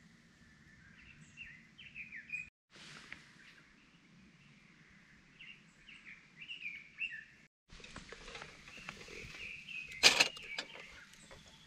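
Small birds chirping and singing in short phrases. About ten seconds in, one sharp metallic clack sounds, the loudest thing here, as a die-cast aluminium Bauru hot sandwich maker is flipped over on a campfire grill. Light clicks come just before and after it.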